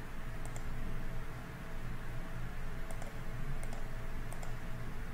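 A few faint, short computer mouse clicks, about four spread through the stretch, over a steady low hum.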